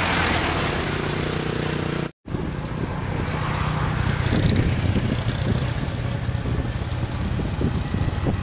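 Motor vehicle engine running steadily, broken by an abrupt cut about two seconds in, after which engine noise carries on rougher and noisier.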